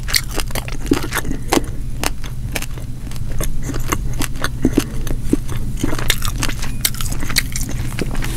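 Close-miked, mouth-closed chewing of deep-fried whole striped bass: a quick, irregular run of small wet clicks and crunches, over a steady low hum.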